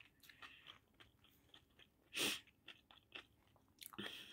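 Quiet close-up chewing of food, with small mouth clicks, one short louder burst about two seconds in and another flurry near the end.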